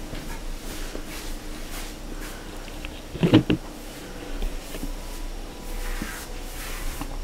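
Room tone with a faint steady hum, broken about three seconds in by a short cluster of loud knocks.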